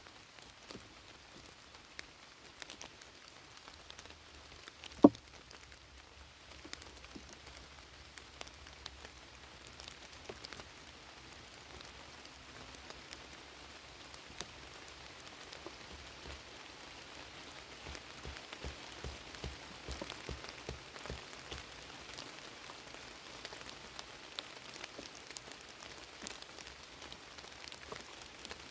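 Steady rain falling, with many scattered drops ticking and pattering on a surface. About five seconds in comes one sharp knock, the loudest sound here.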